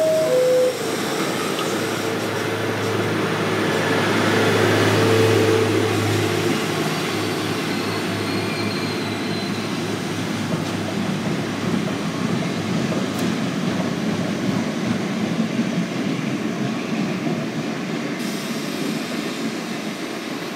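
R68A subway train's two-tone door chime at the very start, then the train pulls out of the station. A steady motor hum swells over the first several seconds, then gives way to the rolling noise of steel wheels on the rails, which slowly fades as the train moves away.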